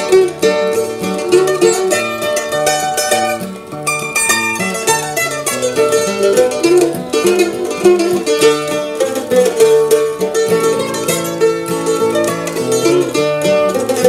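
Instrumental background music led by a quickly picked plucked-string instrument, with a busy run of notes changing several times a second.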